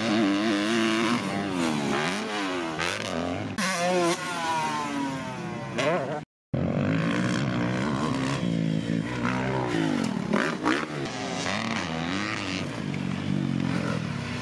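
Dirt bike engines revving up and down on a motocross track. The sound cuts out briefly about six seconds in.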